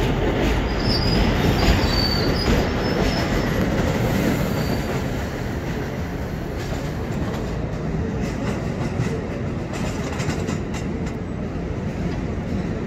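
MTA track geometry car running past on the elevated track: a steady rumble of steel wheels on the rails, with brief high wheel squeal in the first few seconds. It eases off a little as the car pulls away.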